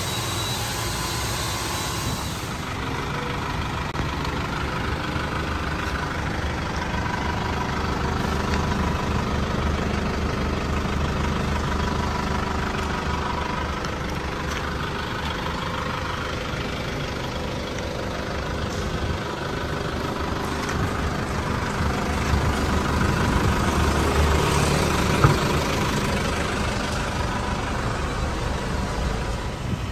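Isuzu Traga light truck's engine idling steadily, with a single brief knock near the end.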